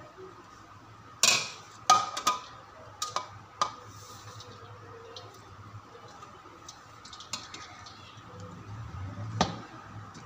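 Metal kitchenware clanking: a steel ladle and colander knocking against the rim of a metal cooking pot as boiled rice is tipped in and spread. A quick run of sharp clanks comes about a second in, and one more near the end.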